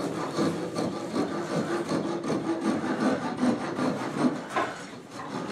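Hand tools working wooden bucket staves: a steady run of short, irregular scraping and rasping strokes of steel on wood.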